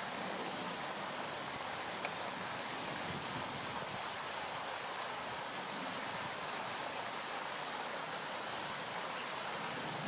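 Steady rushing of running stream water, with one short sharp click about two seconds in.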